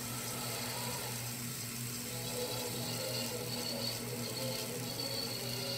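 Steady low hum and hiss of an old newsreel film soundtrack played back through a projector, with faint music underneath.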